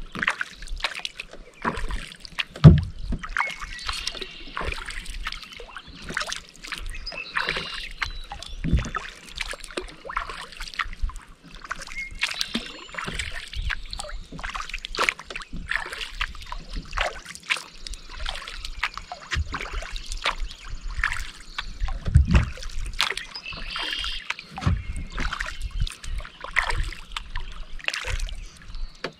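A kayak being paddled on calm water: paddle blades dipping, with water dripping and trickling off them in many small splashes. A few low thumps stand out, the loudest about two and a half seconds in.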